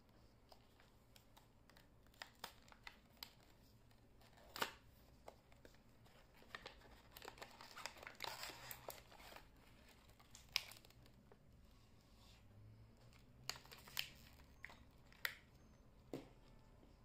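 Faint handling of product packaging as it is opened: scattered sharp clicks and taps, with a longer spell of crinkling and tearing about halfway through.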